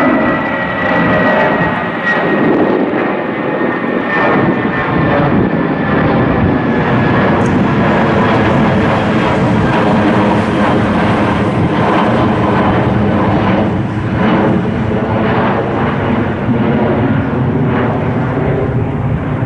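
Jet airliner passing close by, its engines loud and steady, with a high whine that falls slowly in pitch over the first few seconds.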